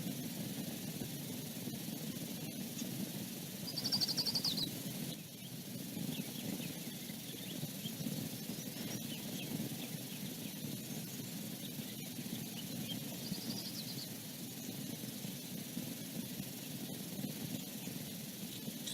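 Steady outdoor background hiss picked up by the nest-cam microphone. A short, high, rapid chittering bird call comes about four seconds in and a fainter one about thirteen seconds in, with faint chirps between.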